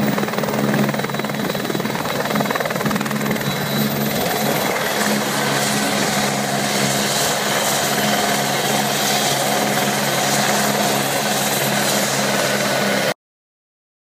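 Rescue helicopter running on the ground with its rotor turning: steady rotor noise with a thin high turbine whine over it. The sound cuts off abruptly near the end.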